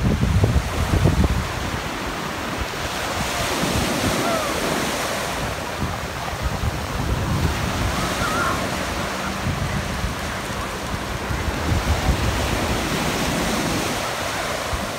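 Small waves breaking and washing up a sandy beach, the surf swelling and ebbing every few seconds. Wind buffets the microphone, heaviest in the first second or so.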